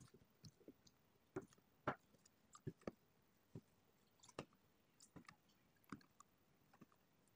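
Metal spoon stirring activator into clear water-slime liquid in a plastic tub: faint, irregular clicks and taps of the spoon against the plastic, one or two a second.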